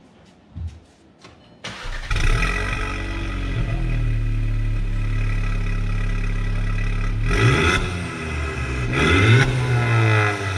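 A VW Jetta's 1.4-litre turbocharged four-cylinder engine cranks and starts after a few faint clicks, settles into a steady idle, then is blipped twice near the end, its pitch rising and falling each time.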